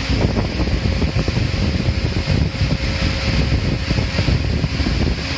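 Cylinder honing machine running, its hone grinding inside an engine block's cylinder bore: a steady, rough mechanical noise.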